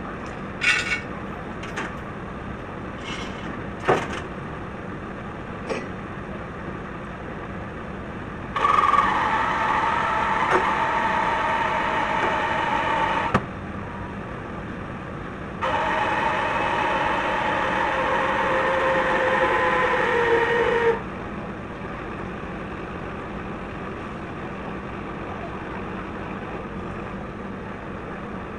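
Heavy equipment's diesel engine running steadily, with a few sharp metal knocks in the first few seconds. Twice, for about five seconds each, a louder steady whine of machinery under load comes in and cuts off abruptly, starting about 9 and 16 seconds in.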